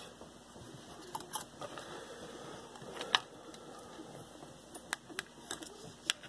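Scattered small clicks and taps from hands handling battery leads, clips and small tools on a workbench, a few seconds apart, with the sharpest click about three seconds in.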